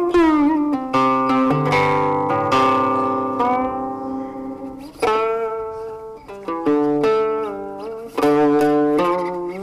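Instrumental music on a plucked string instrument: picked notes and chords left to ring, some sliding in pitch.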